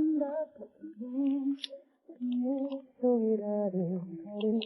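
Background music: a woman singing a slow, melodic Korean pop song in sustained, wavering phrases.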